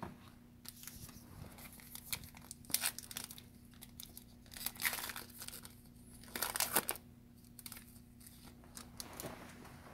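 Plastic foil wrapper of a 2018 Diamond Kings baseball card pack being torn open and crinkled by hand, in several short bursts of tearing and crinkling, over a faint steady hum.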